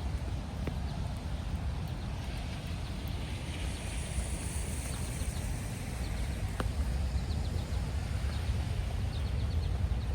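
Outdoor walking ambience: a steady low wind rumble on the microphone, scattered footsteps on a wet path, and a few short bird chirps near the end.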